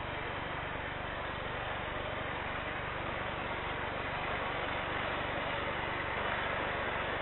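Boeing 747-8 freighter's jet engines idling, heard from a distance as a steady rushing noise that grows slightly louder toward the end.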